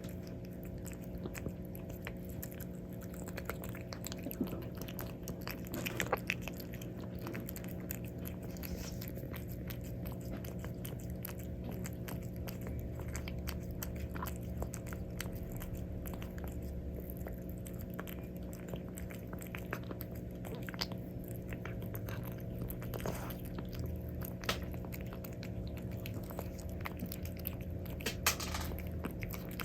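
Calico cat chewing and eating cat food, a run of small irregular wet clicks and bites, over a steady low electrical hum.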